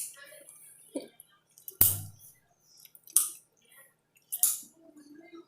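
A string of short, sudden wet mouth noises from drinking water, gulps, swallows and lip smacks, coming about a second apart.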